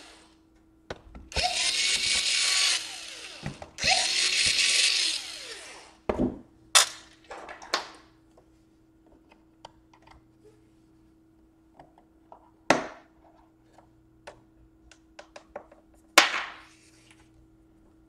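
Cordless drill-driver backing out a laptop's bottom-cover screws: two short runs of the motor, about a second in and again near four seconds, each winding up and then down in pitch. After that come scattered sharp clicks and taps as the case is handled, the loudest about six, seven, thirteen and sixteen seconds in.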